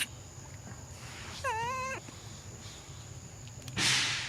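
A young monkey gives one wavering, high-pitched cry lasting about half a second, near the middle. Near the end come two short rushing noises, louder than the cry.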